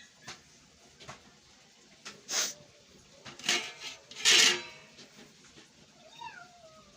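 A person sneezing a few times in quick succession, the loudest sneeze about four seconds in.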